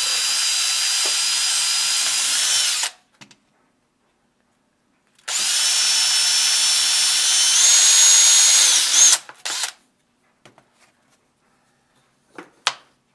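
Cordless drill boring pilot holes into a wooden block so the wood won't split: two runs of about three and four seconds, the motor whine steady in the first and stepping up in pitch near the end of the second. A couple of short knocks come near the end.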